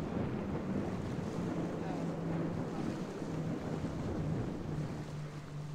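Boat engine running with a steady low drone as a boat passes through the inlet, over wind buffeting the microphone and the wash of waves.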